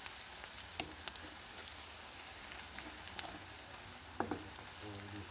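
Sliced onions sizzling in hot oil in a frying pan, stirred with a wooden spatula, with a steady hiss and scattered small pops and clicks as they soften.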